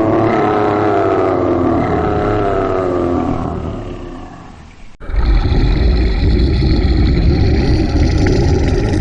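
Two roar-like sound effects in a row. The first is a long, pitched roar or groan that slowly falls in pitch and fades away. After a sudden cut about five seconds in, a harsh, rumbling roar follows and lasts about four seconds.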